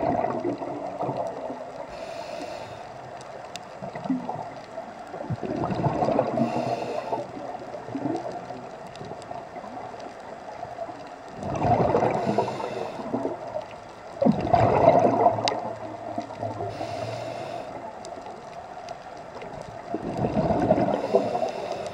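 Scuba diver breathing through a regulator underwater: a short hiss on each inhale and a gurgling rush of exhaust bubbles on each exhale, repeating every few seconds.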